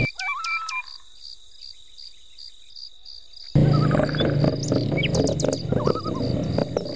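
Birds singing in the woods over the steady low hum of an ATV being ridden, with a faint, evenly pulsing insect trill above. For the first three and a half seconds the engine hum drops out, leaving only the birdsong and insect trill, then the engine hum cuts back in.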